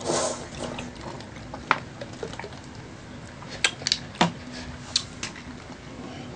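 Close-miked eating sounds: a short slurp as food is pulled off a skewer into the mouth, then scattered wet mouth clicks of chewing over a faint steady hum.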